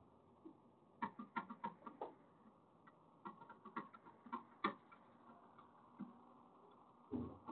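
Small objects being handled on a shop counter: scattered light clicks and taps in two clusters, with a heavier knock near the end.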